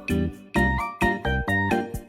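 Upbeat background music with a steady bass beat and a bright melody of short notes.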